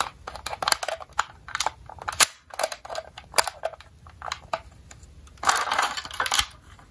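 Irregular plastic clicks and taps from fingers handling a toy ambulance and prying its hinged rear doors open, with a brief scraping rustle about five and a half seconds in.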